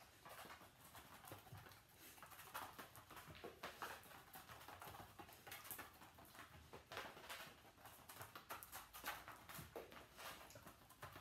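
Faint, irregular patter of a dog's paws and claws on rubber floor mats as it moves and runs between the cones.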